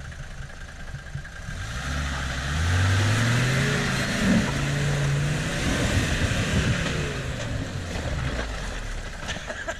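Puch G-wagon engine revving up under load as the off-roader crawls over rocks and mud. The pitch rises over a few seconds, holds, then falls away as the driver eases off.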